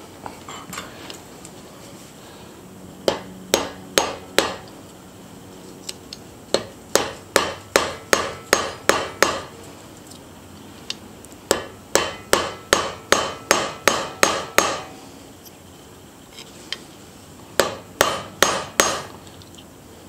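Ball-peen hammer tapping the axle pivot pins of a Victorinox 111 mm pocket knife laid on a steel anvil, setting the pins home. The taps are quick, light and metallic, about three a second, in four runs with short pauses between them.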